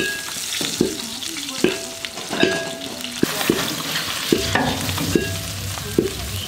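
Fried climbing perch sizzling in hot oil while a slotted metal ladle scrapes and knocks against the steel pan, scooping the fish out, with a knock and a short metallic ring about once a second.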